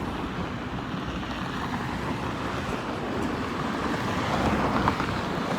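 Road traffic noise: a steady wash of passing vehicles, swelling a little about four to five seconds in as a vehicle goes by.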